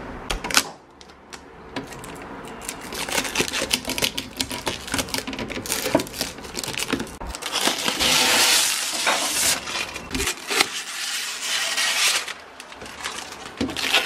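Clear plastic drawers and door bins of a new Samsung refrigerator clicking, knocking and clattering as they are handled, with a longer rustle of plastic about eight seconds in.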